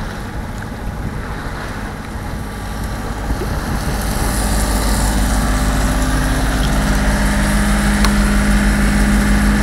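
A sailboat's inboard diesel engine running steadily under motor, with water rushing along the hull and wind on the microphone. From about four seconds in, the engine's low hum becomes louder and dominates.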